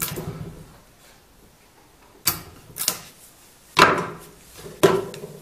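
Sharp wooden knocks and cracks, five in a few seconds, as willow rods for a round basket base are pierced with an awl.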